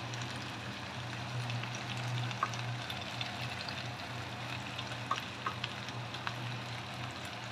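Potato rounds frying in oil in a pan: a steady gentle sizzle with scattered small pops and crackles, over a steady low hum.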